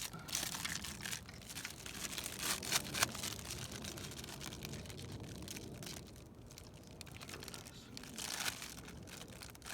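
Irregular crinkling and rustling handling noise with a few sharp clicks, busiest in the first three seconds and again near the end.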